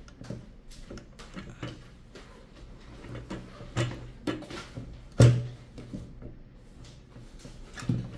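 Manual button pin press being worked by hand: scattered plastic-and-metal clicks and knocks as its die base is turned and set, with one sharp clunk about five seconds in and smaller knocks around it.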